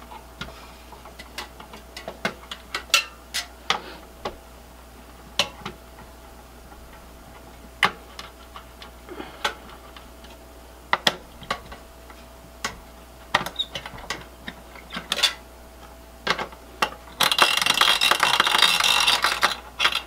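A screwdriver backing out the spring-loaded screws of a CPU heatsink: scattered metallic clicks and ticks, then near the end a couple of seconds of loud squeaking from a squeaky spring on one screw.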